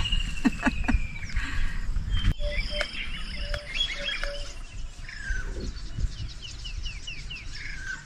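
Birds calling and chirping: a long falling trilled whistle, then assorted chirps, a string of short repeated low whistles, and a quick run of five or so falling notes near the end.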